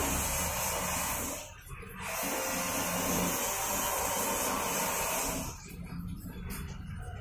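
Videocon Digi Zaara Plus washing machine filling with water: a steady rushing hiss of water pouring into the tub. It breaks off for about half a second around a second and a half in, resumes, and drops away to a fainter sound about five and a half seconds in.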